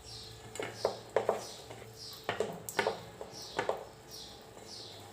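A metal spoon knocking and scraping against a dish, several sharp clinks, while rice stuffing is spooned into a raw duck. Behind it a bird chirps steadily, about two short high chirps a second.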